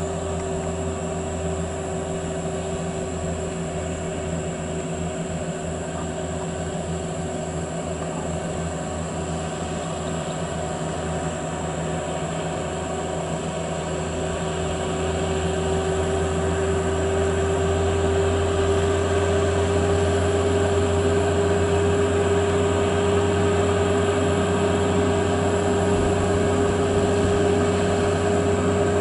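Heavy Volvo FH16 coal-hauling trucks driving slowly past, their diesel engines running steadily with a prominent whine, growing louder from about halfway through as the lead truck draws near.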